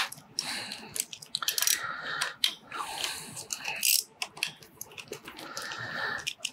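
Hand socket tool spinning out the retainer-ring bolts of a motorcycle clutch's diaphragm-spring pressure plate: irregular metallic clicks and scrapes of the socket on the loosened bolts. The spring pressure is already backed off, so the bolts turn freely.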